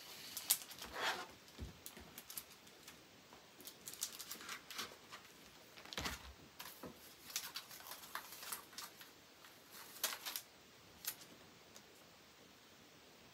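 Sheets of paper being handled on a desk: a run of rustles and crinkles with light taps, thinning out near the end.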